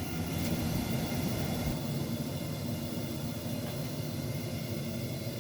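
Forge running with a steady, even roar and hiss.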